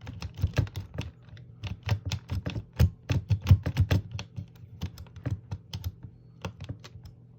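A lock-picking rake scraping and clicking against the pins of a small pin-tumbler lock held under tension: quick, irregular metallic clicks, dense at first and thinning out after about four and a half seconds.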